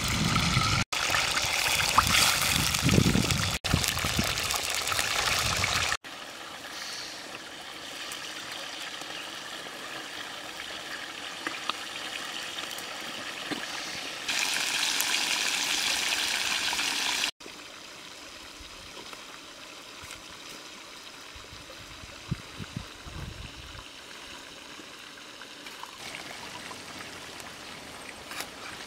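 Whole fish frying in hot oil in a wok over a wood fire: a steady sizzle, louder in two stretches and dropping between them at edit cuts. In the quieter last part there are a few light knocks.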